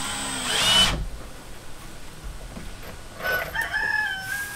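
A cordless drill spins up and drives a screw into a wooden board for about a second, its whine rising in pitch. About three seconds in comes a long animal cry that holds a steady pitch for more than a second.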